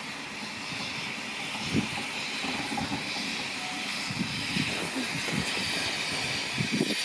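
Steam rotary snowplough Xrotd 9213 running with its rotor wheel turning: a steady hiss of steam, with irregular low thumps.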